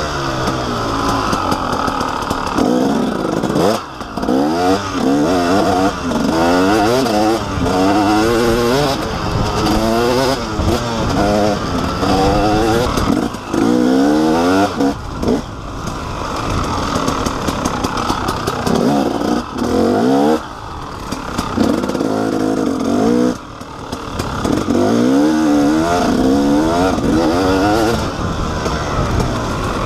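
KTM 300XC's two-stroke single-cylinder engine revving up and down over and over while riding, its pitch rising and falling with the throttle. The sound dips briefly a few times.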